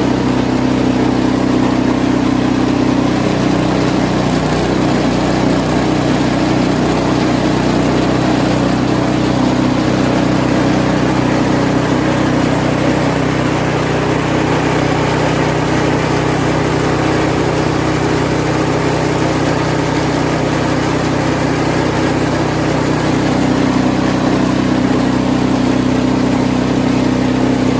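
Engine of a homemade banana-stem feed-chopping machine running steadily and loudly. Its note turns rougher a few seconds in and evens out again near the end.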